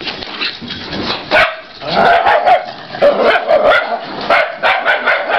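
Dogs barking during rough play: a quick run of barks, two or three a second, from about two seconds in.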